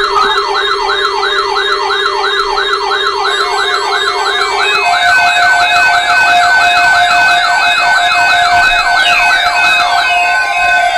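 Several weather alert radios sounding their tornado-watch alarms at once: a fast warbling siren-style tone, about three sweeps a second, layered over steady alert tones. The steady tones change about five seconds in.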